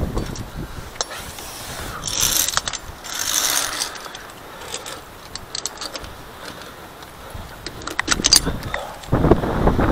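Metal clicks and scrapes of via ferrata carabiners clipping onto and sliding along the steel safety cable, with some rustling of the climber's gear. Wind starts buffeting the microphone near the end.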